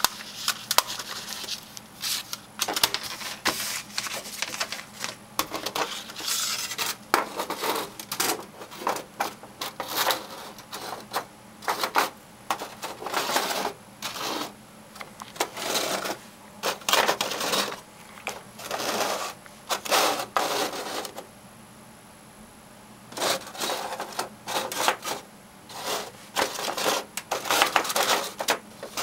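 Folding camping-stove wind shield of thin hinged metal panels being handled and unfolded on a wooden tabletop: repeated metallic clinks and rattles of the panels and their hinges, with a short break about three quarters of the way through.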